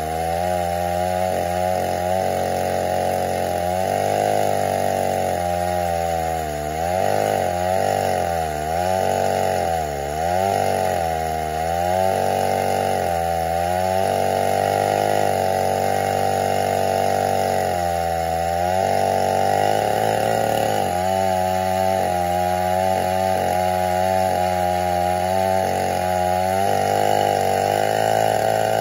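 Chainsaw mounted in a Granberg Alaskan mill ripping lengthwise through an oak stump at full throttle. The engine pitch sags under the load of the cut and picks back up again and again through the first half, then runs steadier.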